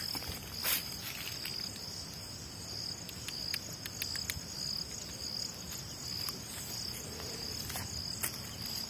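Night crickets chirring steadily in a high-pitched band that swells and fades, with a few faint clicks scattered through.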